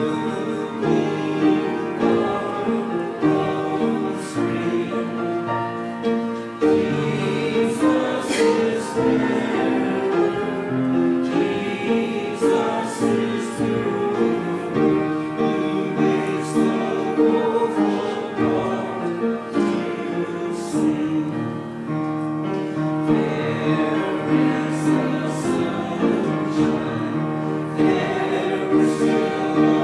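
Congregation singing a hymn together, accompanied by piano.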